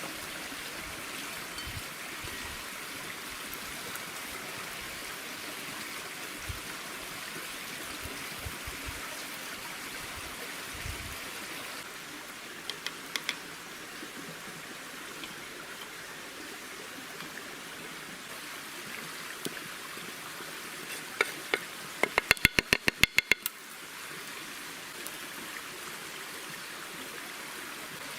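Steady rush of flowing water, like a nearby stream. It carries a few scattered clicks and, about two-thirds of the way through, a quick burst of sharp clicks lasting about a second and a half.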